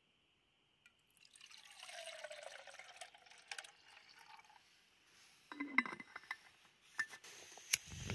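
Liquid running into a wide-mouthed plastic bottle for a few seconds, its pitch sweeping down and back up as it flows. Then handling noise and two sharp clicks near the end.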